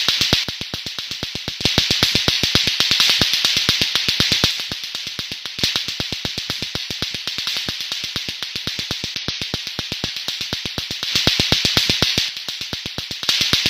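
Lato-lato clacker toy: two plastic balls on a string knocking together in a fast, steady rhythm of about six clacks a second. A hiss swells and fades behind it a few times.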